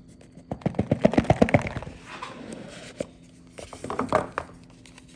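Handling noise from small fidget items and their packaging: a quick run of clicks about a second in, a short rustle, then another cluster of clicks near the four-second mark.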